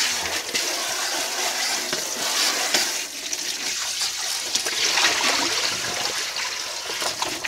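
Kitchen tap running into a stainless steel sink: a steady rush and splash of water.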